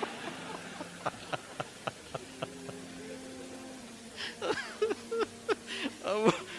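A pause in a lecture: quiet room tone with a faint steady hum and scattered soft clicks, then a voice in short, broken, rising-and-falling sounds for the last two seconds.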